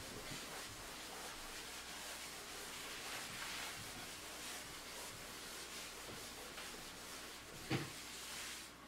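Chalkboard eraser wiping across the board: faint soft rubbing strokes, with a light knock near the end.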